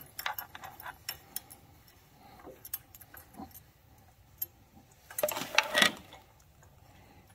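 Allen key turning a steel bolt out of a motorcycle side stand's adjustment holes: scattered small metallic clicks and ticks, with a louder metallic rattle about five seconds in as the bolt works loose.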